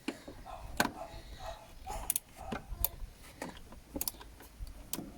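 Scattered sharp metallic clicks and taps, about one a second, from a socket wrench being worked on a 10 mm bolt.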